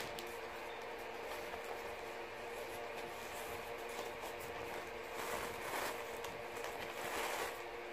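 Disposable dog pee pad rustling softly as it is unfolded by hand, with crinkles about five seconds in and again near the end, over a steady background hum.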